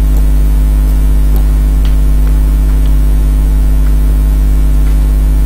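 Steady electrical hum: a loud low drone with a stack of evenly spaced steady overtones. A few faint clicks sound over it.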